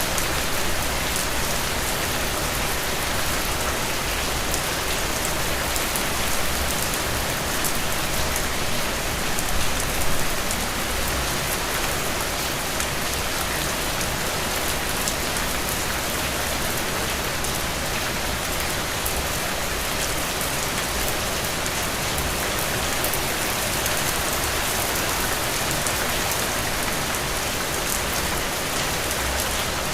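Steady rain falling, an even hiss dotted with many fine drop ticks, a little louder for a moment about ten seconds in.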